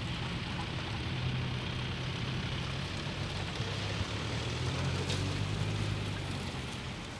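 Skoda Kodiaq Scout SUVs driving by slowly on a rough dirt track: a low engine hum whose pitch drops about halfway through, over a steady hiss.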